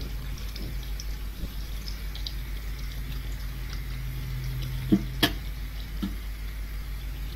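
Eggs frying in hot oil in a pan: a faint sizzle with scattered small crackles over a steady low hum. Two sharp clicks come about five seconds in.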